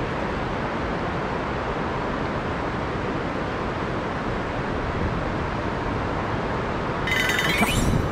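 Steady rush of flowing river water, with a brief, sharper scratchy burst about seven seconds in.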